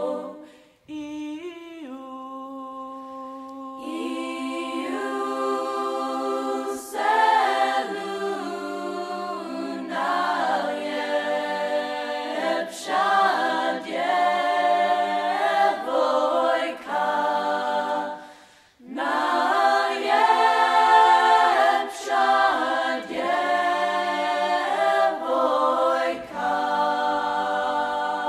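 Unaccompanied choir singing slow, sustained chords phrase by phrase. It starts softly with fewer voices and grows fuller about four seconds in. There is a brief break a little past halfway, and the singing ends right at the close.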